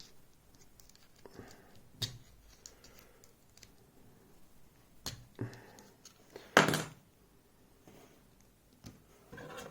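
Metal tools clicking and scraping against a lock cylinder's thick circlip as it is pried at, with a few sharp clicks spread out and a louder clack about two-thirds of the way through.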